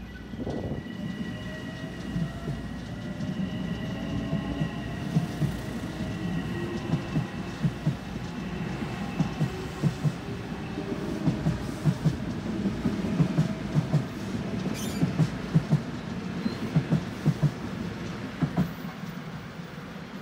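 Metro-North commuter train running past the platform and pulling away. Its wheels click rhythmically over the rail joints under a steady rumble, with a thin high whine that fades out about halfway through.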